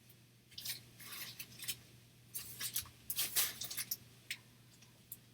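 Handling noise from CGC-graded comic slabs and their packaging: quick rustles and light plastic clicks in two clusters, the second louder.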